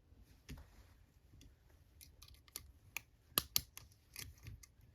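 Light, irregular clicks and taps from a lock pick and a homemade tension tool being handled and fitted into the keyway of a four-lever oval padlock held in a vise. The loudest clicks come a little past the middle.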